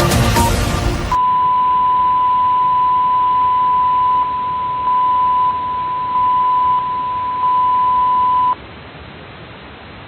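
Electronic music cuts off abruptly about a second in, replaced by a steady single-pitch broadcast test tone over faint hiss. The tone holds for about seven seconds, then stops, leaving only the faint hiss.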